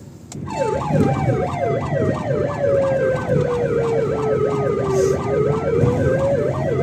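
Car-mounted Ahuja electronic hooter sounding a police-style siren: a fast yelp sweeping up and down about three times a second over a slower tone that falls and then rises again. It starts about half a second in.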